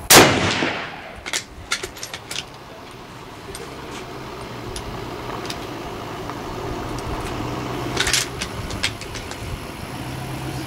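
A Type 99 Arisaka rifle fires one shot, a sharp report that rings out with a long echo. A few lighter sharp clicks follow within the next two seconds, and a second, weaker sharp crack comes about eight seconds in.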